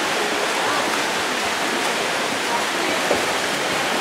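Steady rushing wash of water splashing from several swimmers racing freestyle in a pool.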